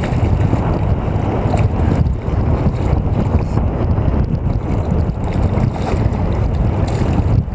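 Steady low rumble of wind buffeting the microphone out on open water, with no clear break or change.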